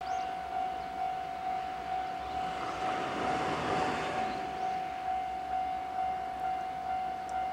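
Railway level crossing warning alarm sounding a steady tone that pulses evenly, a little more than once a second. A broad rush of noise swells and fades about three to four seconds in.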